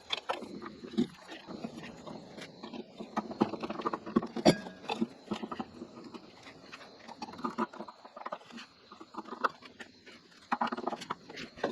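Irregular clicks, knocks and rustling of hands handling ceiling-fan parts and hardware during installation.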